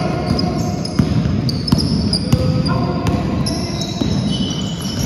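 Basketball game on a sports-hall floor: the ball bouncing in a few sharp knocks as it is dribbled, with short high squeaks of players' shoes on the court throughout.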